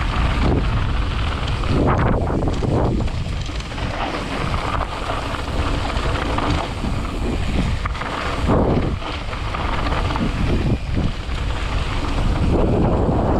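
Wind buffeting the microphone of a camera riding down a dirt mountain-bike trail, over the rumble of tyres rolling on dirt and bumps, surging every second or so.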